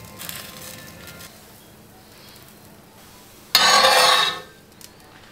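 Metal spatula working on a cast-iron pan as a thin crepe is rolled: soft scraping at first, then one louder scrape lasting about a second, about three and a half seconds in. Faint background music underneath.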